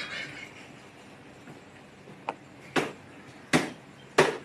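Four sharp knocks or taps, each well under a second from the next, after a quiet stretch of about two seconds.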